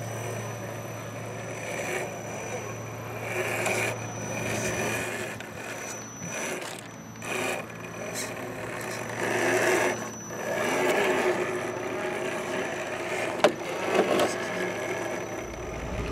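Electric motor and gear drivetrain of a 1/10 scale RC4WD Trail Finder 2 rock crawler whining, rising and falling in pitch with the throttle, while its tyres scrape and grind over rock. Two sharp knocks come near the end.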